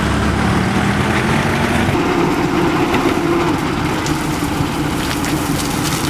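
Heavy engine of road-works machinery running steadily, its note stepping up to a higher pitch about two seconds in.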